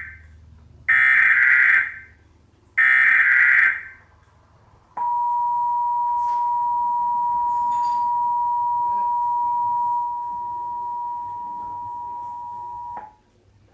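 Emergency Alert System broadcast: two short bursts of SAME header data, each a harsh digital warble about a second long. About five seconds in the EAS attention signal starts, a steady two-tone 853 and 960 Hz tone held for about eight seconds and growing a little quieter near its end. It marks the start of a national test alert.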